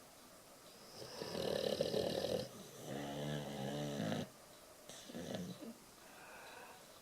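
Boxer dog snoring while asleep: a raspy breath about a second in, then a longer snore with a steady pitch, and a shorter, fainter one after it.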